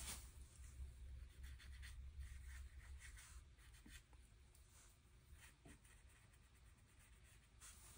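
Faint, scratchy strokes of a small watercolour brush on paper, thinning out about halfway through, over a low hum.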